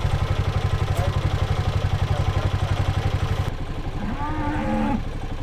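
An ATV engine idles with a fast, even low throb. About three and a half seconds in, it drops to a softer, quieter running note.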